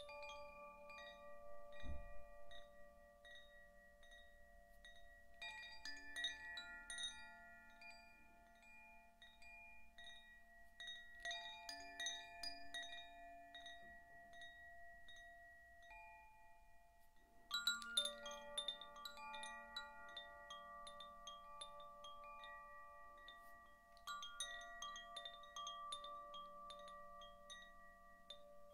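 Zaphir Sufi chime, a hollow cylinder whose clapper strikes tuned rods inside, swung by hand. It sounds short runs of quick light strikes about every six seconds, and several clear tones ring on and overlap between them.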